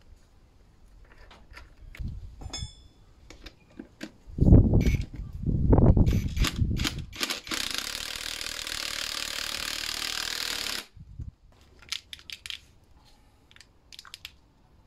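Metal clinks and knocks as a front strut, coil spring, spring compressors and top mount are handled and fitted together. A run of heavy low thumps comes near the middle and is the loudest part. It is followed by about three seconds of steady hissing noise that cuts off suddenly.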